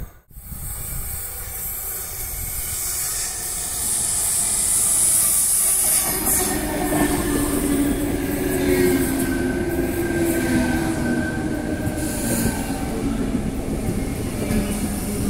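Double-deck electric suburban train running alongside a station platform, its wheels and running gear making a steady rumble that grows louder a few seconds in, with a steady whine or wheel squeal over it from about halfway through.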